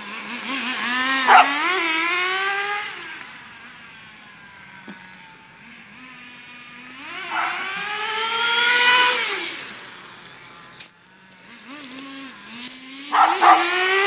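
Small nitro two-stroke glow engine (HPI T-15) of an RS4 3 Evo remote-control car, idling and then revving up in three acceleration runs. Its whine climbs in pitch each time before dropping back to idle, with one sharp click near the end.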